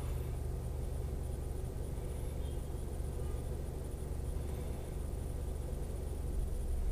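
Steady low mechanical rumble with a low hum, like an engine or machinery running at a distance.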